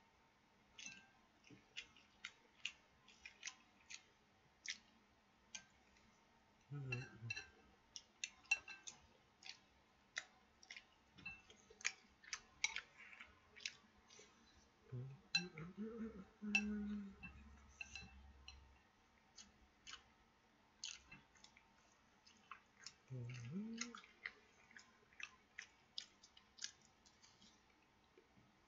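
Close-up chewing and mouth noises, many small sharp clicks, of a person eating rice and soy-sauce-fried bacon. Three brief low vocal murmurs come about 7, 16 and 23 seconds in.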